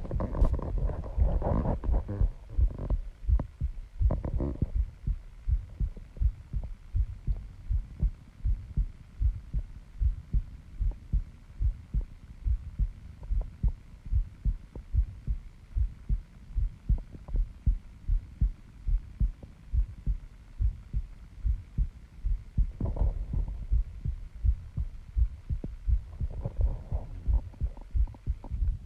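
A person's heartbeat picked up through a microphone pressed against the body: a steady, even rhythm of low thumps.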